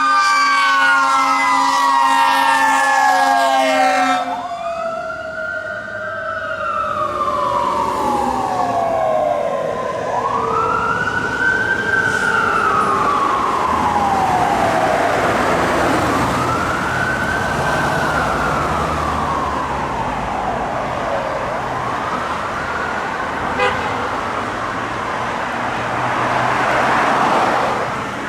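Fire engine's air horn blasting over its siren for about the first four seconds. After that the siren wails alone, rising quickly and falling away more slowly in long sweeps about every six seconds, with a low engine rumble underneath.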